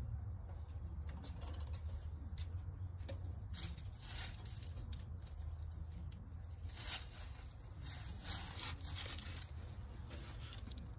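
Soft scratchy rustling and scattered faint clicks as one rabbit licks and grooms another's fur, over a low steady hum.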